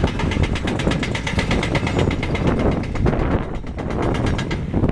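Hydraulic demolition excavator working on a concrete building: a steady diesel engine rumble under a fast, even clatter of about ten beats a second that fades out around three seconds in and starts again at the end.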